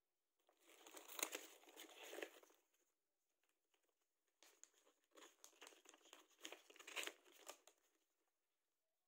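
Faint crinkling of plastic wrapping and a paper pamphlet being handled and pulled out of a cardboard parcel, in two spells with a short pause between.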